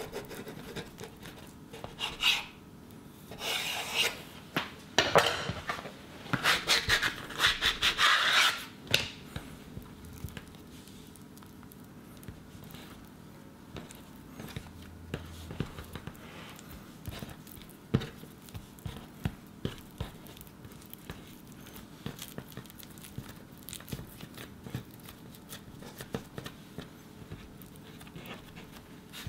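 A knife slicing through layered dough and scraping on a wooden cutting board, several strokes over the first several seconds. Then quieter soft rubbing and light taps as the dough strips are twisted and braided by hand.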